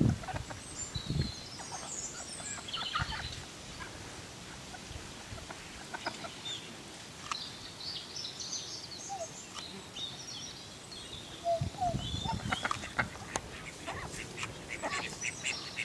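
Birds calling around a pond of ducks and black swans: scattered short high chirps and a couple of brief mid-pitched calls, with a few low bumps near the start and about twelve seconds in.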